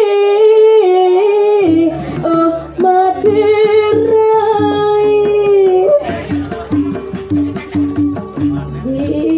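A solo voice sings a long, sliding melodic phrase in Balinese style. About two seconds in, a gamelan ensemble comes in under it with drum and pitched percussion. The voice stops about six seconds in, and the gamelan plays on with quick, regular cymbal (cengceng) strikes.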